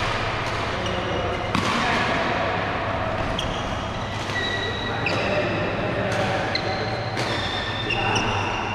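Badminton play in a large hall: sharp racket strikes on the shuttlecock every few seconds, with short high squeaks of shoes on the court mat and voices in the background.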